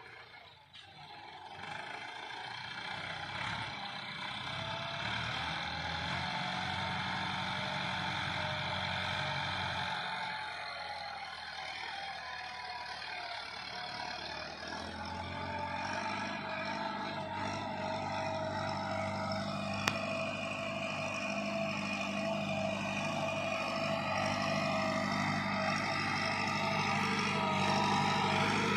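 Massey Ferguson 375 tractor's diesel engine running steadily under load as it pulls a disc harrow over tilled soil. It grows gradually louder as the tractor comes closer.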